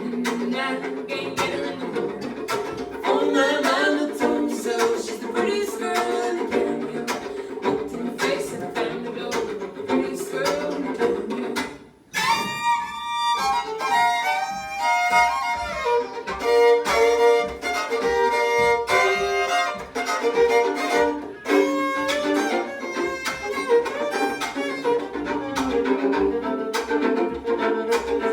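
Two fiddles playing a tune, with the fiddle chop, a scratchy percussive bow stroke, keeping a steady rhythm. The music drops out briefly about twelve seconds in, then a fiddle melody rings out over the chopping.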